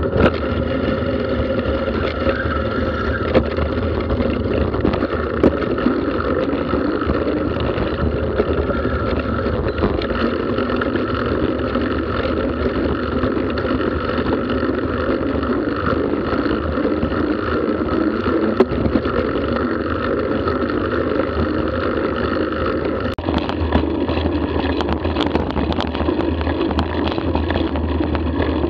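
Bicycle rolling along a tarmac lane, heard from a camera mounted low on the bike: steady tyre and road rumble with wind on the microphone and occasional small knocks. The sound shifts lower about 23 seconds in.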